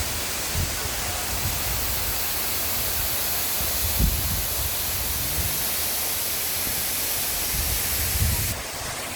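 Steady rushing roar of a waterfall, with wind buffeting the microphone in irregular low gusts. The high hiss drops abruptly near the end.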